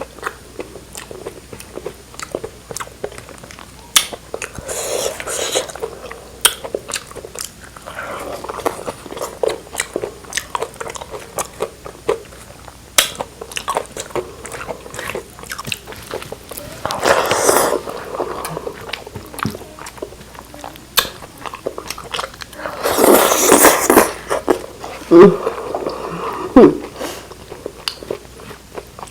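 Close-up eating sounds: chewing and biting with frequent wet mouth clicks. There are a few louder crunchy bursts, about 5, 17 and 23 seconds in, and a brief pitched vocal sound near the end.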